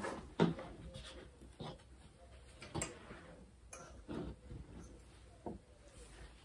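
Faint, scattered clicks and knocks with soft rustling as a dress form wearing a lace gown is turned on a worktable and the fabric is handled.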